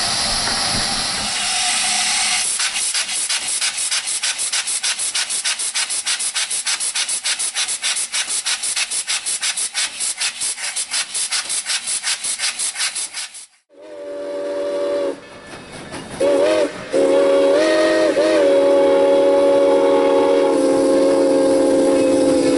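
Air-powered hand tool working at the driving-wheel crank pins of a steam locomotive: a fast, even clatter of about five strokes a second over a loud hiss. After a sudden cut, a multi-chime steam whistle blows twice briefly, then holds one long blast.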